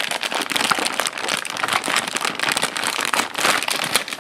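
A clear plastic bag crinkling and crackling continuously as hands pull it open.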